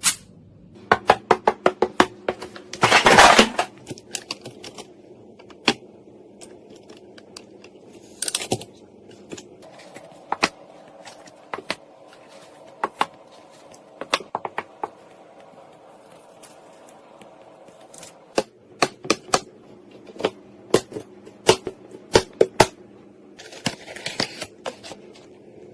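Scattered sharp clicks and knocks of computer parts being handled and fitted, with a brief scraping rustle about three seconds in, over a steady low background tone.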